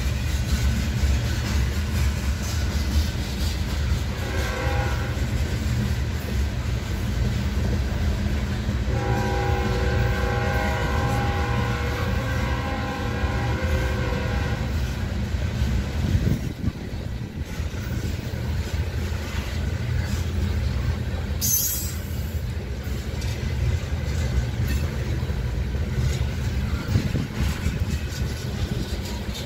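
Covered hopper cars of a long freight train rolling past, a steady low rumble of wheels on rail. A locomotive horn sounds from up the line, briefly about four seconds in and again for some five seconds from about nine seconds in.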